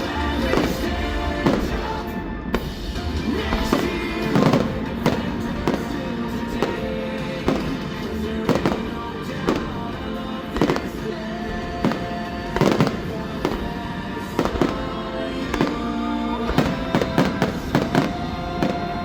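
Aerial fireworks going off, a sharp bang roughly once a second, over music.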